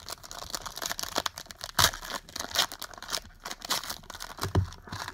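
Trading card packs and cards being handled: a plastic-foil card pack wrapper crinkling and tearing, with cards rustling.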